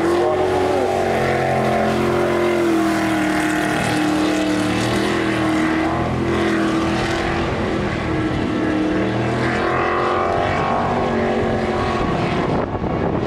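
V8 jet sprint boat engine running at high revs as the boat races through the course, the note rising and falling slightly through the turns.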